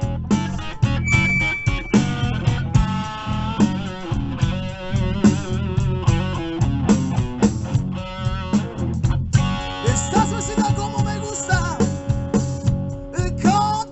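Blues band playing live: guitar and bass over a steady beat, with bending melodic lines about ten seconds in.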